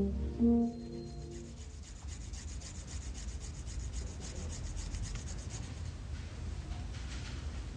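The last held notes of a brass music cue, then a steady run of quick, rhythmic rubbing or scraping strokes, several a second.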